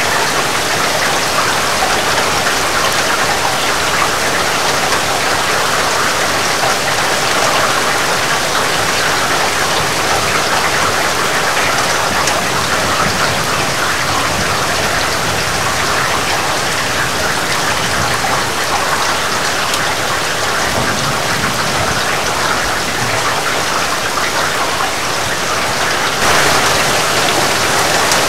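Heavy rain falling steadily, a dense, even hiss of drops. About 26 seconds in, the sound jumps abruptly a little louder.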